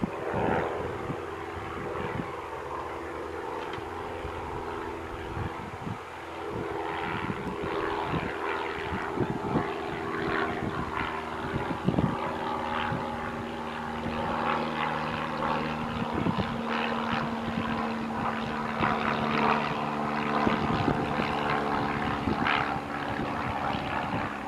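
Boeing 737's jet engines running at low power: a steady hum made of several tones that shift in pitch now and then.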